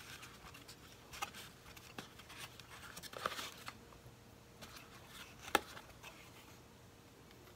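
Light handling noise: scattered small clicks and rustles as airbrush parts are picked up and set into a cardboard box's foam insert, the sharpest click about five and a half seconds in.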